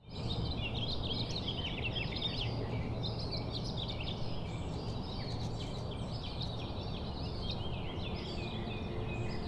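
Many small birds chirping and singing at once over a steady outdoor background hiss, fading in at the start.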